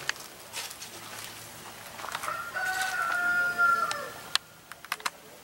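A rooster crowing once, a single pitched call about two seconds long that drops off at the end. A few light clicks follow near the end.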